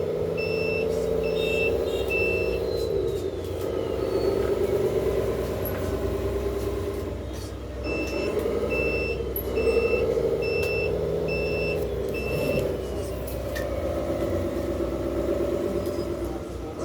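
1/14-scale Lesu Hino 8x8 RC dump truck's drive running and whining as it manoeuvres, the pitch wavering with the throttle. A reversing beeper beeps about twice a second in two runs, near the start and again in the middle.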